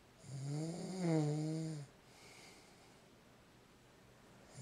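A man snoring in his sleep: one snore of a little under two seconds, a steady low buzz, then a pause of a few seconds before the next snore starts at the very end.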